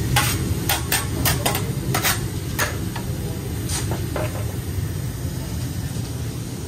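Metal griddle spatulas clacking and scraping on a steel flat-top griddle, about ten sharp strikes in the first four seconds, then fewer. Under them runs a steady low rumble.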